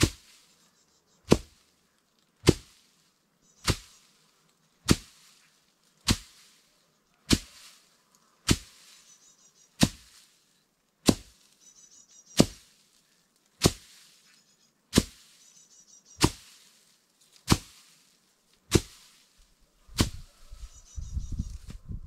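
Sharp knocks repeating evenly, about one every 1.2 seconds, seventeen in all, each ringing out briefly. A low rumbling noise sets in near the end.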